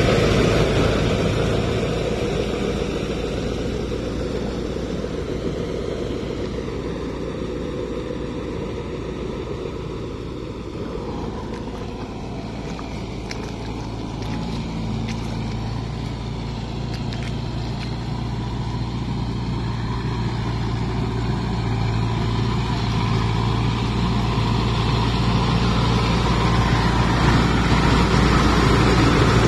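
Kubota MU 5502 tractor's four-cylinder diesel engine running steadily under load as it pulls a rotary tiller through wet paddy mud. The sound fades in the middle as the tractor moves off and grows louder again near the end as it comes close.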